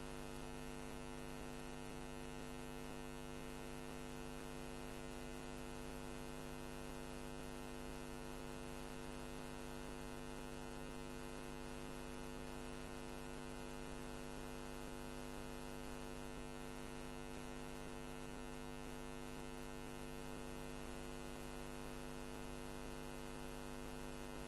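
Steady electrical mains hum: a stack of even buzzing tones over faint hiss, with no other sound.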